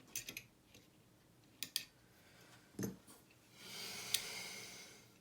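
Metal lever lock and picking tools being handled: a few small metallic clicks, a dull knock about three seconds in, then a soft rushing scrape with one sharp click in it near the end.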